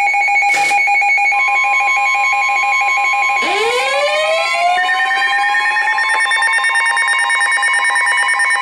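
Layered emergency alert tones: steady electronic alert tones sounding together, with another steady tone joining about a second in. About three and a half seconds in, a siren-like tone sweeps upward and levels off, and a fast pulsing buzz joins from about six seconds.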